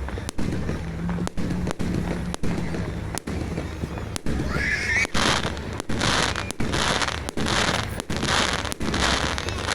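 Fireworks going off, with sharp bangs throughout. From about halfway through there are also about six short bursts of crackling hiss, less than a second apart.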